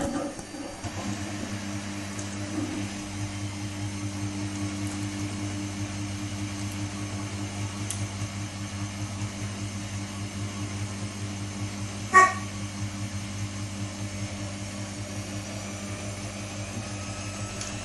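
Samsung WW80J5555FWEU front-loading washing machine running mid-cycle with a steady low hum, and one sharp click about twelve seconds in.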